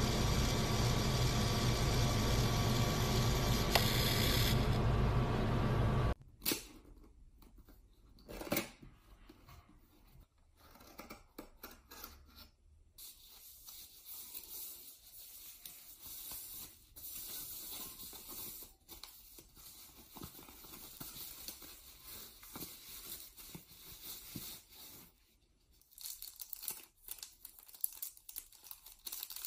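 A pocket photo printer's motor hums steadily as it pushes out a print, then stops abruptly about six seconds in. After that, plastic packaging is handled, crinkled and torn open, with scattered small clicks and rustles of a box being unpacked.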